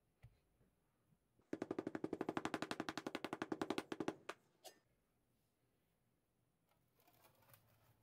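Rapid, evenly spaced knocking, about eleven strokes a second for roughly two and a half seconds, as oil-bonded molding sand is rammed into a casting flask by hand. A couple of single knocks follow, then faint scraping near the end as excess sand is struck off with a flat plate.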